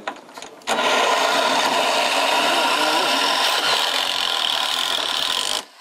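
Cordless drill running under load as it bores into the aluminum gutter and fascia board, a steady whir for about five seconds that starts under a second in and stops abruptly near the end.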